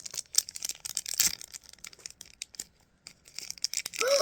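Small plastic mystery bag being torn open and crinkled, in quick irregular crackles. Near the end comes a short voiced sigh whose pitch rises and then falls.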